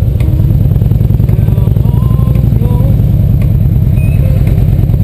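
Touring motorcycle engine running steadily while riding along, a constant low rumble of rapid firing pulses close to the bike.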